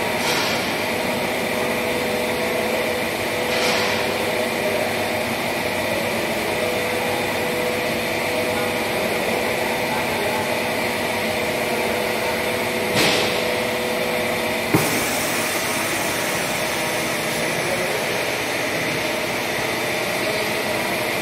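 Steady mechanical hum and hiss of workshop machinery, with a steady tone that stops about fifteen seconds in as the hiss grows brighter, and three brief swishes.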